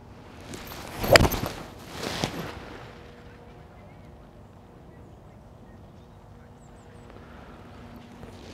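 A golf iron shot off the tee: a short rush of the swing, then a sharp click as the clubface strikes the ball about a second in. A second, softer rush of noise follows about a second later.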